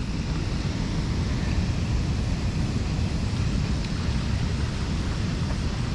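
Wind buffeting the microphone in a steady low rumble, over the even rush of a flowing river.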